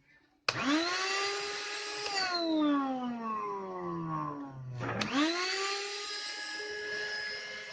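Karcher WD1 wet-and-dry vacuum cleaner motor switched on and whining up to speed, switched off and winding down over a couple of seconds, then switched on again and running steadily. This is a test run after its loose carbon-brush connection was repaired.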